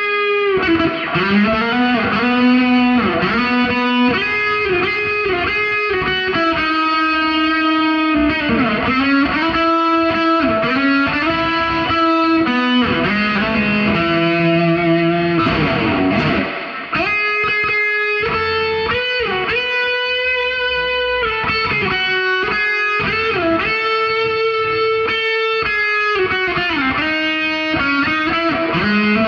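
Electric guitar played through effects with some distortion: a slow melodic lead line of held notes that slide and bend in pitch.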